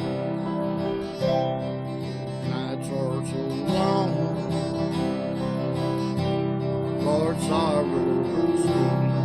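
Acoustic guitar strumming an instrumental break between sung verses of a country song, with a wavering melody line rising and falling about four seconds in and again about seven seconds in.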